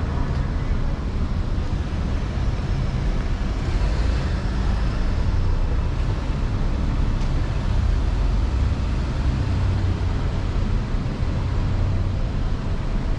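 Steady street traffic noise: car engines and tyres making a low, even rumble.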